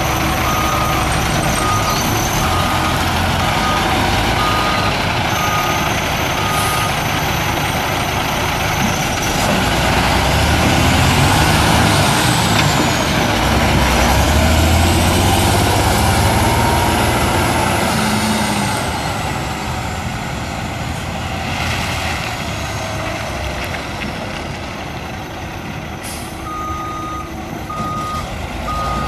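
2000 International F4900 dump truck's DT530 inline-six turbo diesel running and moving off, the engine note swelling in the middle with a high whistle that rises and falls in pitch. A backup alarm beeps steadily at the start and again near the end, and short air hisses are heard twice in the last third.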